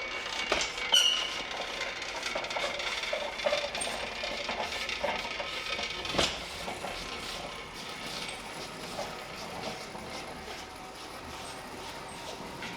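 Metal clinks and clanks of tools and parts being handled, with a brief metallic ring about a second in and a sharper knock a little after six seconds.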